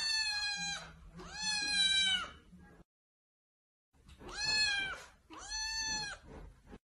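Long-haired calico kitten meowing: four high-pitched, drawn-out meows in two pairs, with a pause of about a second between the pairs.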